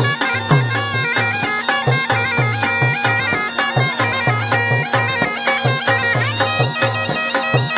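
Pipe band playing: several bagpipes with a steady drone under the chanter melody, over a bass drum beating a regular march pulse and snare drums.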